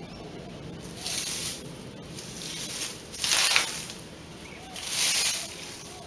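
Lop-eared rabbit digging in loose sandy soil and dry leaves: its paws scrape and rustle in four short bursts, the loudest about three seconds in.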